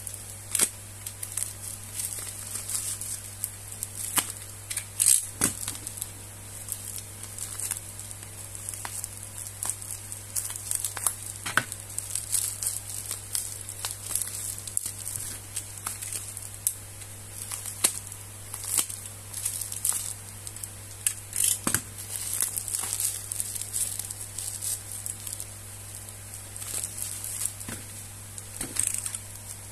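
Plastic courier mailer and clear packing tape crinkling and tearing as they are cut with a utility knife and pulled apart by hand: a busy run of irregular crackles and rips. A steady low hum sits underneath.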